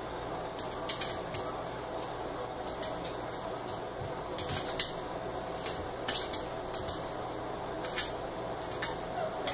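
Irregular light clicks and clinks from two small dogs moving about on a tile floor, a few a second, over a steady low hum.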